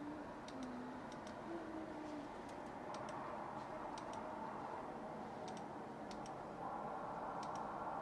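Computer mouse clicking: scattered single and paired clicks over a steady background hiss that gets somewhat louder near the end.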